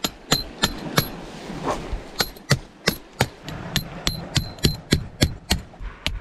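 Metal tent peg being hammered in: a run of sharp, ringing strikes about three a second, with a short pause about a second in.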